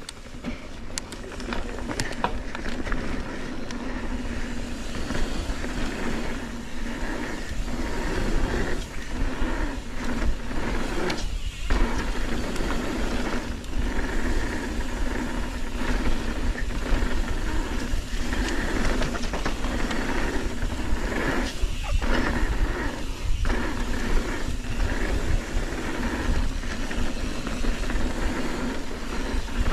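Mountain bike riding fast down a dirt trail: steady wind rush on the microphone with tyres rolling and rattling over the ground, broken by a few brief drop-outs.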